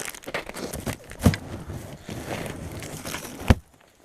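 Snow being cleared by hand, crunching and scraping irregularly, with two sharp thumps, about a second in and near the end. The sound then cuts off suddenly.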